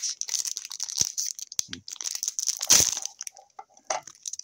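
A hockey card pack's wrapper crinkling and crackling as it is torn open, with one louder tearing burst about three seconds in.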